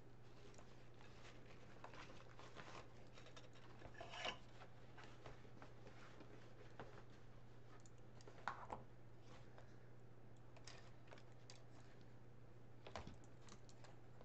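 Quiet handling of striped ribbon being looped on a wooden bow maker and pulled from its spool: faint rustles and a few soft clicks, the clearest about 4, 8 and 13 seconds in, over a steady low hum.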